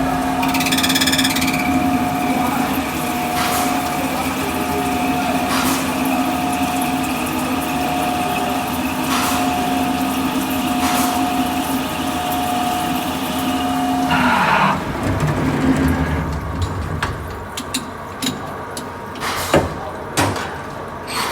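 Portable line boring machine running, a steady motor hum with a steady whine over it. It stops about two-thirds of the way through, followed by a few scattered clinks and knocks.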